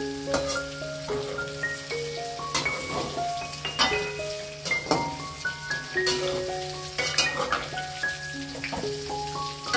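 Tofu cubes frying in hot oil in a wok, a steady sizzle, with irregular clinks and scrapes of a metal spatula against the wok as they are stirred. Soft background music with single mallet-like notes plays over it.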